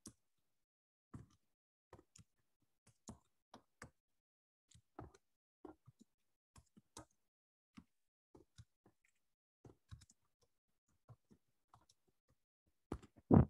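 Computer keyboard keys being typed on: short, separate key clicks at an uneven pace of a few a second, with one louder keystroke near the end.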